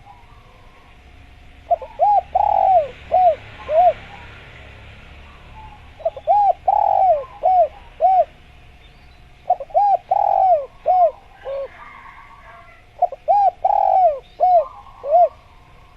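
Spotted dove (tekukur) cooing its song four times, each phrase about five notes with a longer second note, repeating every three to four seconds.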